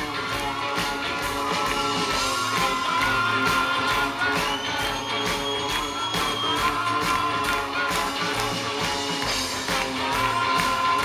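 Live rock band playing: a drum kit keeps a steady beat under guitar and bass, with a sung melody line held in long notes.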